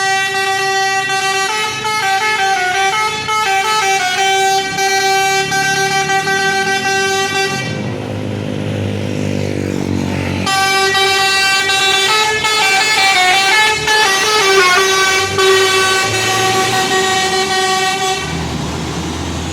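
Tour bus's Basuri telolet musical air horn playing a tune twice: a held drone with a stepping melody on top, each phrase about eight seconds long. In the pause between the two phrases there is a lower rumble with a gliding pitch.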